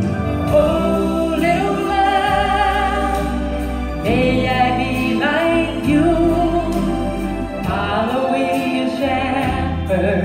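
A woman singing a slow Southern gospel song into a microphone over instrumental backing music, holding long notes with vibrato.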